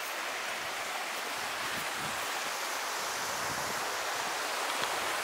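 Steady rush of flowing stream water, an even hiss with little low rumble.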